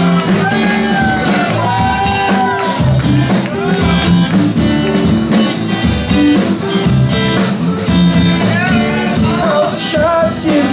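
Live band playing an upbeat country-rock song, with a steady drum beat, bass, and a bending melodic lead line between the sung lines.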